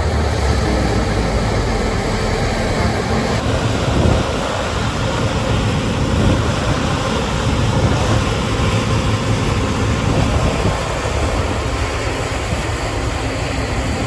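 New Holland combine harvester and John Deere tractor working side by side, their diesel engines and machinery running steadily at close range.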